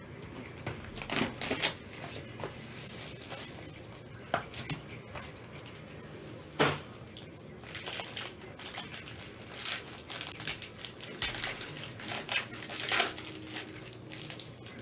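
Plastic shrink wrap on a sealed trading-card box crinkling and tearing as hands unwrap it, in irregular crackles with a few sharper rips.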